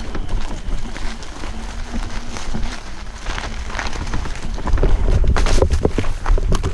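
Electric off-road scooter ridden over dry leaves and sticks, with the tyres and ground litter crackling. About five seconds in, the rumble grows louder and a quick run of knocks and thumps follows as the scooter crashes into the undergrowth.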